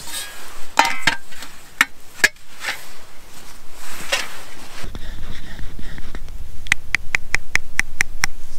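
Cutlery and a camp plate clinking as they are handled. Then a drink stirred in a cup, the stirrer ticking rapidly against the cup's side, about seven clinks a second, over a low rumble.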